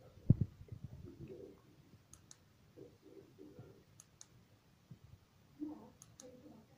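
Push button of a Deemount BCL-201RW USB bike light clicked three times, about two seconds apart, each press a quick double click as it goes down and comes back up, stepping the light through its modes. A soft handling bump near the start.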